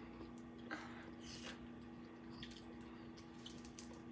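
Faint eating sounds: snow crab legs being cracked and peeled by hand, with scattered small clicks and wet squishes, over a steady low hum.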